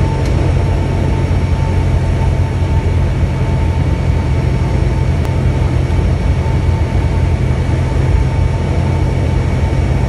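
Cessna 172's piston engine and propeller running steadily, heard inside the cabin on final approach to the runway.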